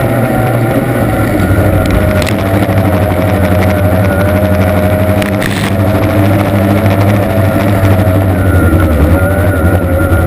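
Formula 1 tunnel boat's outboard racing engine running steadily, its pitch wavering slightly, heard on board over a rush of wind and water. Two brief knocks come about two and five and a half seconds in.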